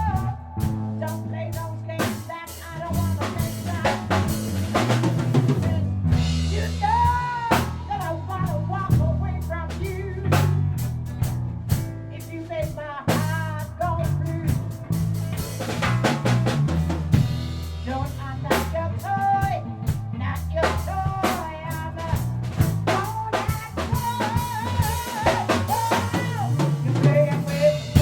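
A band playing: a drum kit with snare and bass drum keeping a steady beat under bass guitar notes, and a higher melodic line with bent, sliding notes on top.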